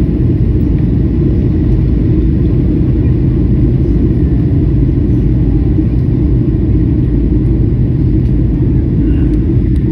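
Airliner cabin noise: a steady low rumble of engines and airflow heard from inside the plane.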